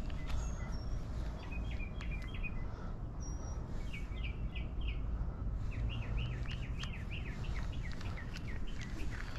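Small birds chirping in quick runs of short repeated notes, the longest run in the second half, over a steady low rumble of wind on the microphone.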